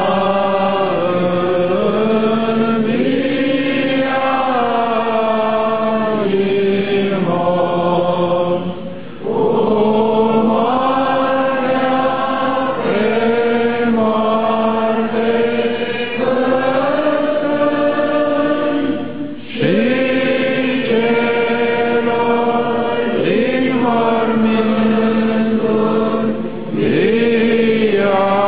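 Orthodox church chant: voices singing slow, long-held phrases that bend gently in pitch, breaking off briefly about every ten seconds before the next phrase begins.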